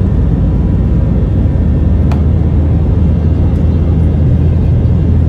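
Steady low rumble of an Airbus A321's CFM56 engines and rushing air, heard inside the passenger cabin, with a single sharp click about two seconds in.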